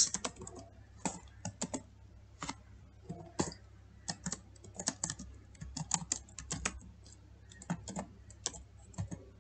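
Typing on a computer keyboard: irregular key clicks, some in quick runs of several keys, with short pauses between.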